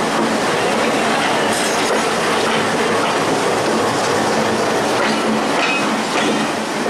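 A WDM-3D diesel-electric locomotive passes at close range on the adjacent track: a loud, steady rumble of its engine and its wheels on the rails. A brief high squeal comes about five and a half seconds in.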